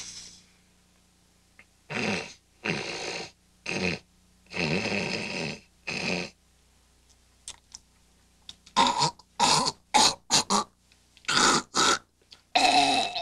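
A man snorting and clearing his nose and throat in a series of loud, separate bursts: several longer ones in the first half, then quicker, shorter, grunting ones from about nine seconds in.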